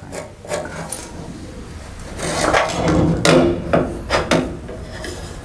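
Light metal knocks and scraping as a bent sheet-steel reinforcement piece is pushed into place against the cab's bracket and clamped with small pliers, with a run of sharper knocks in the middle.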